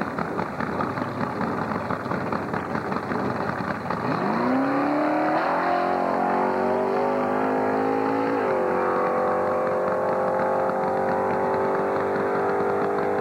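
Drag-racing motorcycle engine held on the starting line: an uneven, lumpy running for the first few seconds, then about four seconds in it revs up and holds a high steady pitch. It steps up to a still higher steady pitch a little past eight seconds while the bike stays put before launch.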